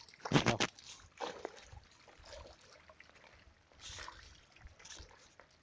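Shallow water splashing and trickling as a fishing net is hauled through it. A burst of splashes about half a second in, then a few fainter splashes and drips.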